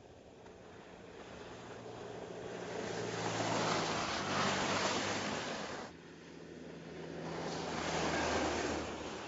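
Mercedes E-Class All-Terrain driving past through snow: a steady engine note under the rushing hiss of tyres in snow, swelling as the car nears. It cuts off suddenly about six seconds in and then builds again as the car passes once more.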